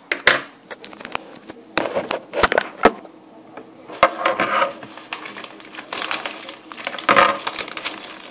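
Padded paper mailer envelope being handled and opened by hand: irregular rustling and crinkling with sharp crackles, in several louder bursts.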